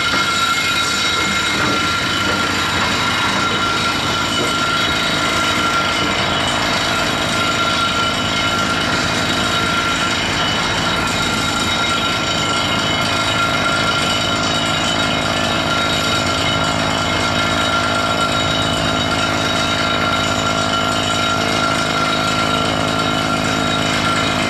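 Komatsu PC228US LC excavator working as it digs, its diesel engine and hydraulics running steadily under load with a constant high whine over the machinery noise.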